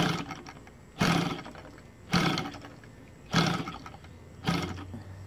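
OS Sirius 7 FR7-420 seven-cylinder radial model engine turned over by hand-flipping its wooden propeller, five times about a second apart. Each flip gives a short whoosh that fades out, and the engine does not catch: its CDI ignition is switched off.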